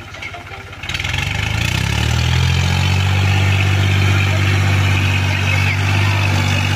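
New Holland 3630 tractor's three-cylinder diesel engine revving up about a second in, climbing in pitch and then holding steady at high revs under load as the tractor drives itself out of deep mud.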